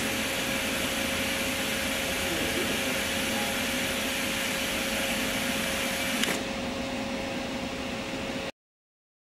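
Fadal 914-15 vertical machining center running with a steady hum and a constant tone. A louder, higher-pitched rushing noise comes in with a click, runs steadily, and stops with another click about six seconds in. The sound cuts off abruptly near the end.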